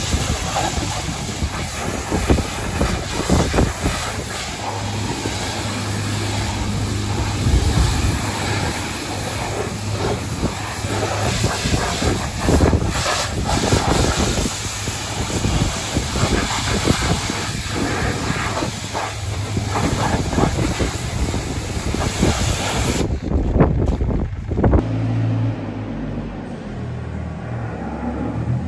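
Pressure washer lance spraying a high-pressure water jet onto a muddy compact loader: a loud, steady hiss with spattering. Near the end it gives way to a lower, steadier machine hum.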